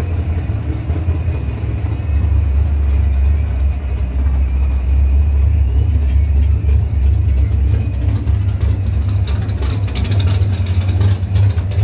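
Drag race car engine running at idle, a loud steady low rumble, with some rougher bursts of noise in the second half.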